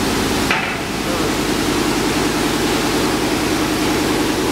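Industrial machinery running steadily: a loud hiss and hum with a fast, even pulse, and a brief clunk about half a second in.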